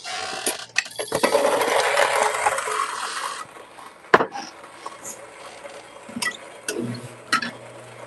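Kafatek MC5 burr grinder grinding a dose of espresso beans, a dense crackling clatter that stops abruptly after about three and a half seconds. Scattered clicks and knocks follow, and a low steady hum comes in near the end.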